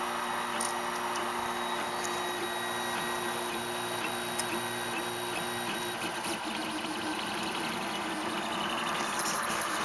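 MiXG1 3D printer running a fast print: its stepper motors hum in held tones that change as the head moves, shifting about six seconds in, over a steady hiss.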